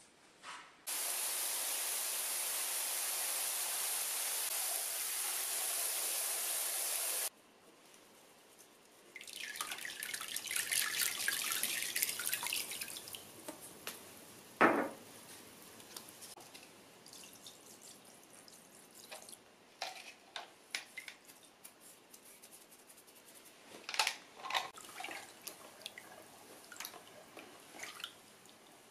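Water running steadily into a foot-bath tub for about six seconds, cutting off abruptly. Then comes rougher pouring and splashing, one sharp knock (the loudest sound), and a hand stirring the water in the tub, with small splashes and drips near the end.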